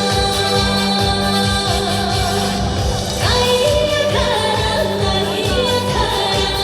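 Trot song performed live: a woman's voice singing long held notes over a backing track with a steady beat, sliding up into a new note about three seconds in.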